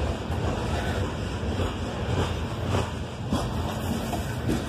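Loaded coal hopper cars rolling past close by: a steady roar of steel wheels on the rails, with a few scattered clicks from the trucks.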